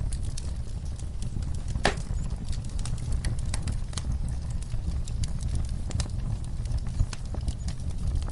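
Wood fire burning in a fireplace: irregular crackles and pops over a low, steady rumble. The sharpest pop comes about two seconds in, and another near the end.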